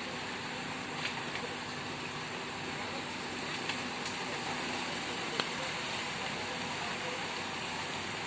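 Steady rushing noise of outdoor road-repair work, with a few short, sharp knocks of tools striking, about a second in and again several times toward the middle.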